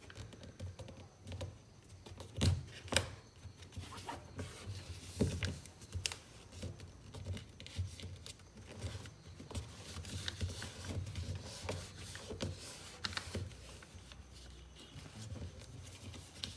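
A sheet of A4 paper being folded and pressed into creases by hand on a tabletop: soft rustles, scattered taps and light thuds, with two sharper knocks about two and a half and three seconds in.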